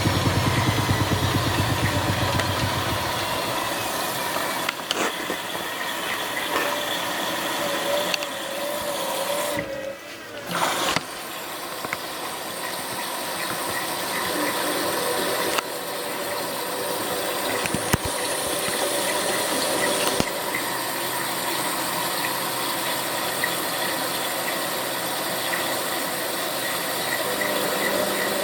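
Bauknecht WA 7778 W washing machine running a wash cycle. Its drum motor hums, falls quiet about three seconds in and starts again near the end, with a brief drop around ten seconds and a few clicks in between.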